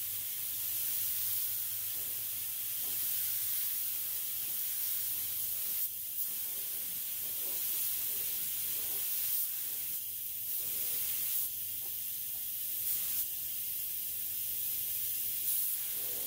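Neiko 31207A HVLP mini gravity-feed spray gun hissing steadily as it sprays clear coat from its 1 mm tip.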